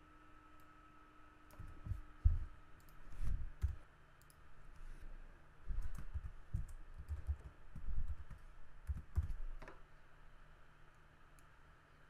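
Typing on a computer keyboard: irregular keystrokes in two spurts, the first starting about a second and a half in, the second from about six seconds in and stopping around ten seconds.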